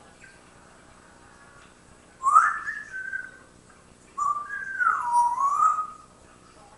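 Parrot whistling two phrases: a short whistle that slides up and holds about two seconds in, then a longer one about four seconds in that steps down, dips and climbs again.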